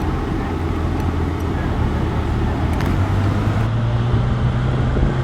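Vehicle engine and road noise while driving, a steady low hum that rises a little in pitch about three to four seconds in as the engine picks up.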